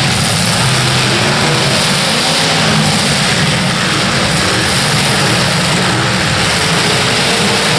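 Demolition derby car engines running and revving, with a steady, loud wash of noise.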